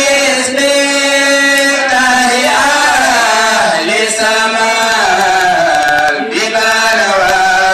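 A man's solo voice chanting an Islamic devotional chant into a microphone, in long held notes that glide and waver, with almost no breaks.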